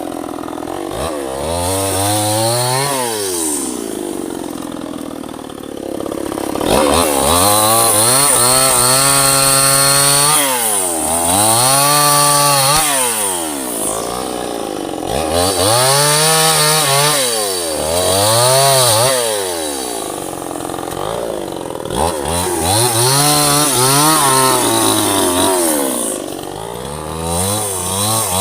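Two-stroke chainsaw cutting teak wood, its engine revving up and falling back over and over, roughly every two seconds.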